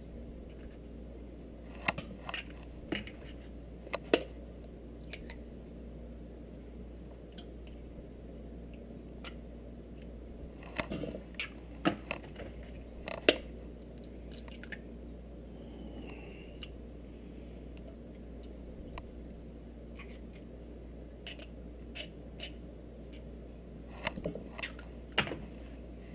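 Eggshells being cracked with a knife blade over a stainless steel bowl: short clusters of sharp taps and cracks about two seconds in, again around eleven to thirteen seconds, and near the end, over a low steady hum.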